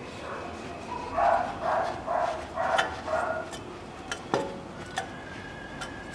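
A dog barking in the background, five short barks in quick succession at about two a second.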